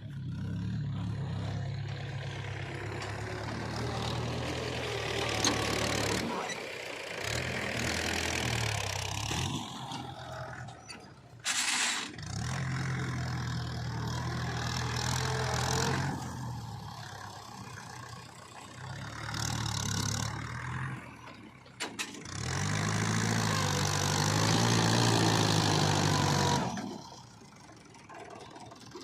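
Heavy diesel engine of a working backhoe loader, its note dropping and picking up again as the load changes, with a sharp metallic knock about twelve seconds in. Near the end the engine works harder and louder, its pitch wavering, then falls back.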